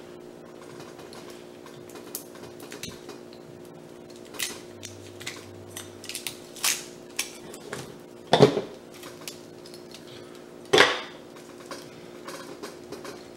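Stainless steel watch bracelet and case being handled in plastic wrap: scattered small metal clinks and clicks, with two louder knocks about eight and eleven seconds in.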